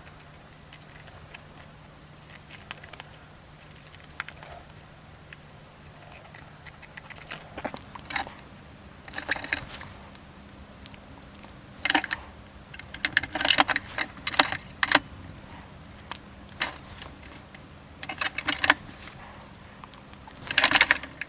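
Scattered clicks, taps and short rustles of hands handling a hard plastic toy vehicle and sticky-backed paper stickers, thickest in the second half, over a faint steady hum.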